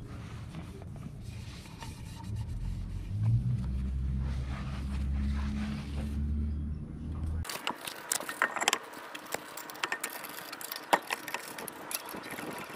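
A low rumble for about the first seven seconds. Then comes a quick run of sharp metallic clicks and scrapes as lug bolts are fitted and turned by hand into an alloy wheel on the car's hub.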